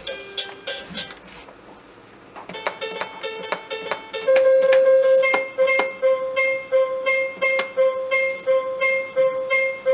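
Auby Treehouse electronic baby toy playing a tinkly electronic tune through its small speaker. The tune fades away about a second and a half in, and a new one of quick plinking notes starts about two and a half seconds in. From about four seconds in it runs over a steadily repeated high note.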